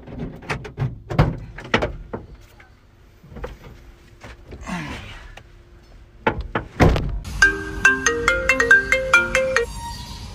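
A few scattered knocks and clicks, then a short stepped, marimba-like phone ringtone melody of an incoming call, which cuts off and leaves a steady tone.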